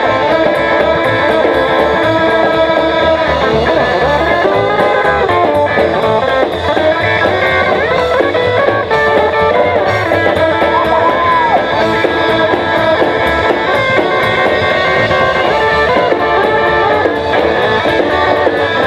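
A live band plays an instrumental passage: an electric guitar leads with bent notes over an upright double bass and a drum kit.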